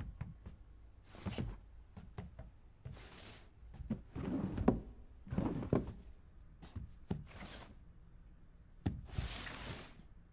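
Sound effects of a wooden box being pushed and dragged: about seven short scraping slides, each about half a second long, with sharp knocks and thunks between them as it bumps along.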